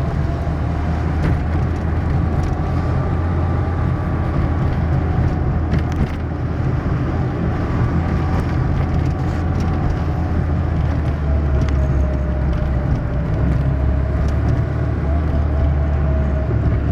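Fiat Uno 60S 1.1 heard from inside the cabin, driving over a potholed road: a steady engine and road drone with a few faint knocks. No noise comes from the suspension, which the mechanic judges to be sound.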